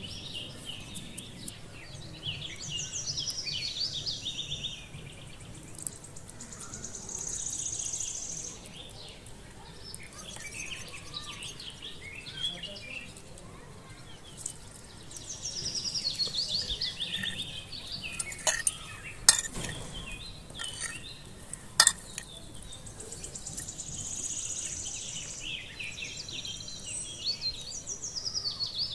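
Birds singing in repeated bouts of quick, descending chirping notes, with a few sharp clinks of kitchenware in the middle.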